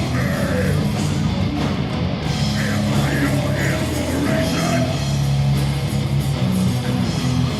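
Live rock band playing heavy rock, with electric guitar over bass and drums.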